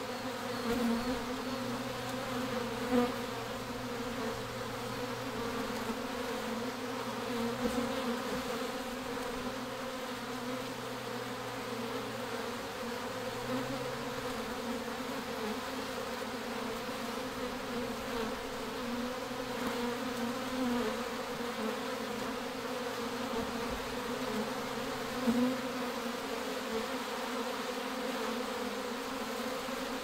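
Honey bee swarm buzzing: the steady hum of many bees flying around the cluster, with a few brief louder swells.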